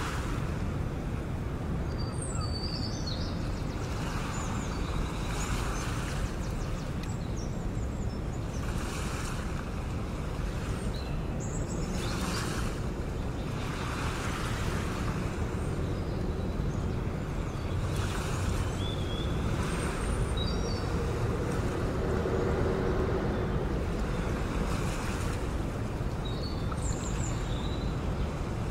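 Sea waves washing and breaking in a steady rhythm, a wash swelling every two to three seconds over a constant low rumble, with a few faint high chirps now and then.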